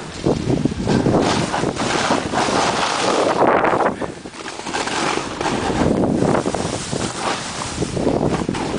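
Wind rushing and buffeting over the microphone during a fast downhill snowboard run, mixed with the hiss of boards carving through snow, swelling and easing with each turn.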